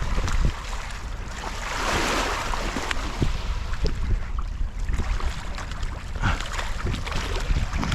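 Wind rumbling on the microphone over water by the shore or boat, with scattered small knocks and clicks from handling gear. A broad rushing swell, a gust or splash, comes about two seconds in.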